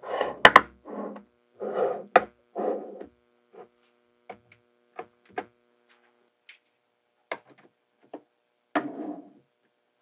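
Small magnetic balls clicking and snapping against each other: a string of irregular sharp clicks with short rattling scrapes between them, the loudest clicks about half a second and two seconds in.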